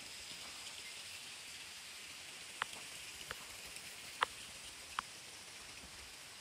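Steady rushing hiss of a mountain stream, with four short sharp clicks between about two and a half and five seconds in.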